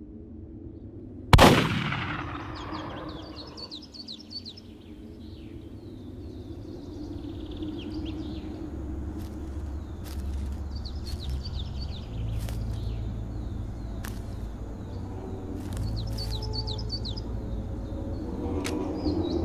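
A single rifle shot about a second in, its echo dying away over about two seconds, followed by birds chirping in short bursts every few seconds over a steady low drone.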